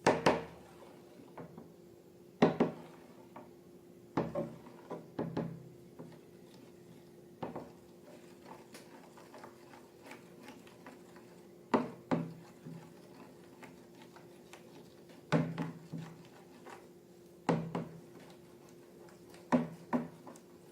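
Hard objects knocked and clacked together in handling, about ten sharp knocks at irregular intervals, some in quick pairs, over a faint steady hum.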